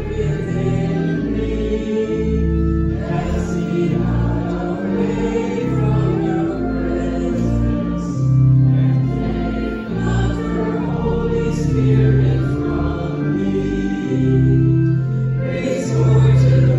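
Congregation singing a hymn together with instrumental accompaniment, in long held notes over a steady moving bass line.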